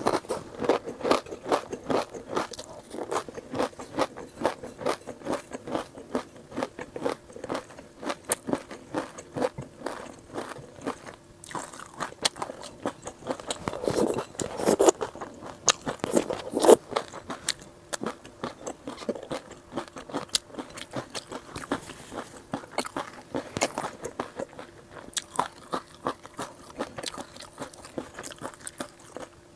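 A person chewing crunchy food close to the microphone: a quick, steady run of crisp crunches, several a second, with a few louder bites around the middle.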